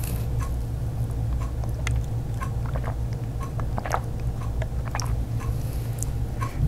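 A person sipping a drink through a straw from a plastic tumbler, with small mouth and swallowing clicks and some rustling of paper sheets in the hands, over a steady low hum.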